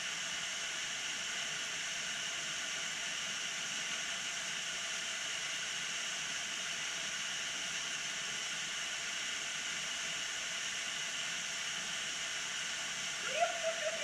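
Steady rushing hiss of a tall, narrow waterfall pouring onto rocks. A short rising call breaks in near the end.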